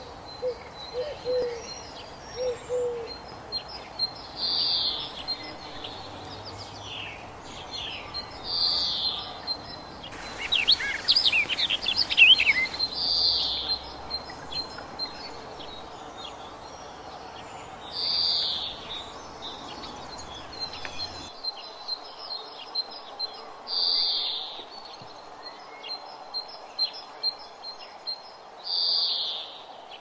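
Wild birdsong: one bird repeats a short high call about every four to five seconds, over fainter ticking chirps. A flurry of rapid chirps, the loudest part, comes about ten to twelve seconds in. Low repeated cooing or hooting notes sound in the first few seconds.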